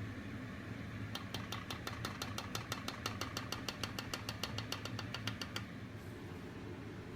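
Rapid, evenly spaced clicking, about seven clicks a second, starting about a second in and stopping some four and a half seconds later, over a steady low hum.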